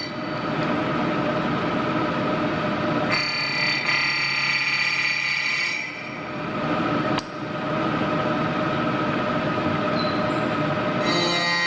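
Vertical knee mill running and cutting metal: a steady machining din with several high whining tones that change abruptly a few times. There is a sharp click about seven seconds in.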